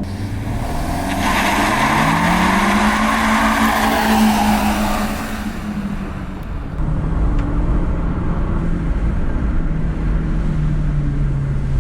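Turbocharged 1.8-litre 20-valve four-cylinder engine of a Mk4 VW Golf GTI under a hard launch from a standstill. The revs climb and hold for a few seconds under a loud rushing hiss. After a short dip near six seconds, which fits a gear change, it pulls steadily again.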